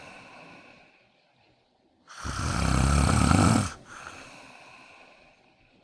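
A sleeping cat snoring: one loud snore about two seconds in, lasting about a second and a half, with softer breathing fading out after it.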